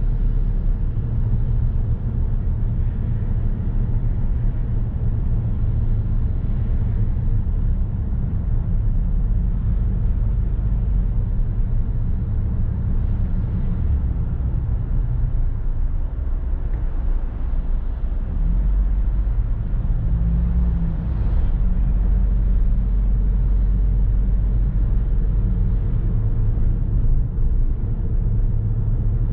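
Car driving on city streets: a steady low rumble of engine and tyre noise, with a short wavering engine tone about two-thirds of the way through.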